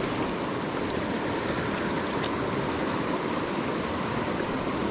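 River water rushing steadily, an even wash of flowing water with no breaks.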